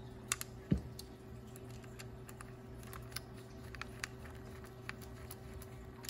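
Small scattered clicks and taps of a screwdriver driving a screw into a plastic toy robot dog's head, with one louder knock about a second in. A faint steady hum runs underneath.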